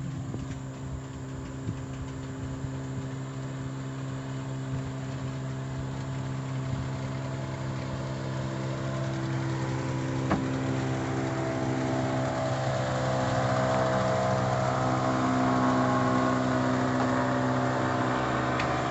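Boat engine running steadily at low speed, growing louder in the second half, with a single click about ten seconds in.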